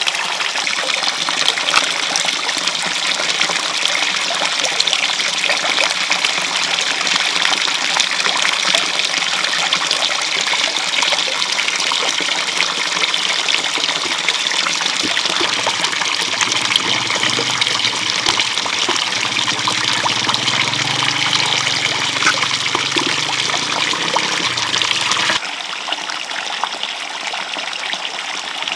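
Water running and trickling steadily, an even hiss, which becomes quieter suddenly near the end.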